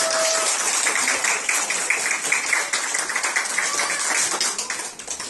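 A small audience of young children applauding: many quick, irregular hand claps that die away near the end.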